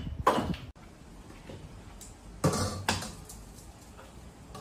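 Kitchenware being handled on a stove: a plate and an iron wok knocking, with two short sharp knocks about two and a half seconds in.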